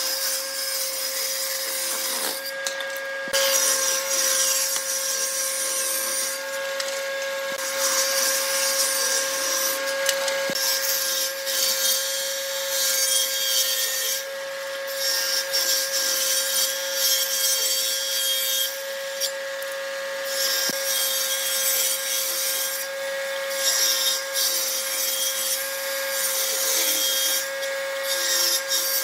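Table saw ripping thin strips from wooden boards: the blade runs with a steady hum while the cutting noise swells with each pass and eases in short gaps between several passes.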